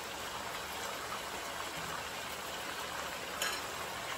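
Chicken pieces sizzling in hot oil in a nonstick pan over high heat, a steady hiss, with one brief tap about three and a half seconds in.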